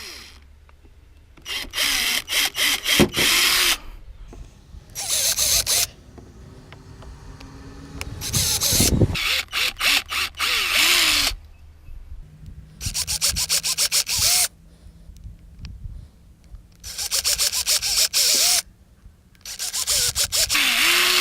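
Cordless drill boring holes through a plastic car bumper for zip ties, in about six bursts of one to three seconds each with short pauses between them.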